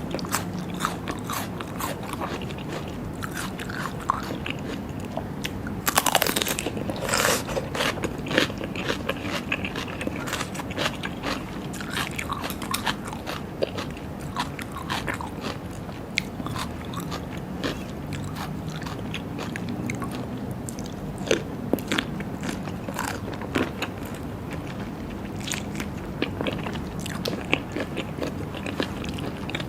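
Close-miked eating sounds: chewing and biting with many small wet clicks and crunches, and a louder crunch burst about six to seven seconds in.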